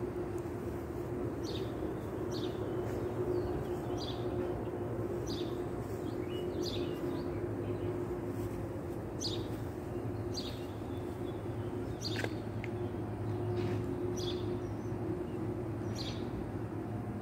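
A bird chirping repeatedly, short high chirps every second or two, over a steady low hum.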